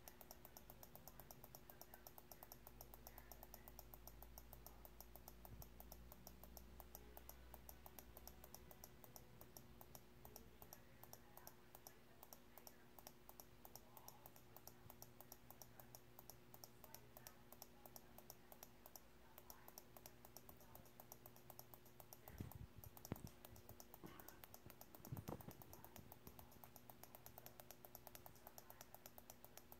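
Faint computer mouse clicking, rapid and evenly spaced, over a low steady hum, with a few louder knocks about three-quarters of the way in.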